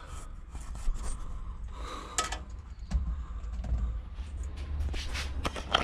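Low rumble with a few scattered light clicks and knocks, the sharpest about two seconds in and a couple near the end.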